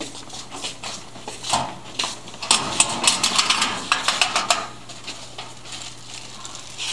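Footsteps on a hard hallway floor, then a steel school locker's latch rattling and its door clanking open: a quick run of metallic clicks and clatters starting about two and a half seconds in and lasting about two seconds.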